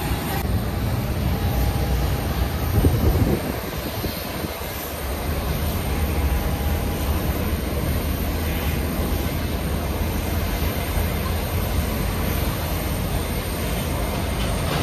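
Steady low rumble of airport noise, with a louder swell about three seconds in and a faint steady whine at times.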